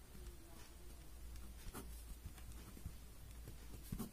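Faint scratching of a pen writing on paper, with a few short strokes standing out, over a steady low hum.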